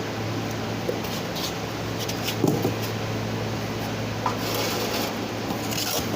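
Light handling noises, a few small knocks and some rubbing or brushing, over a steady mechanical hum. The loudest knock comes about two and a half seconds in, and the rubbing is heaviest in the second half.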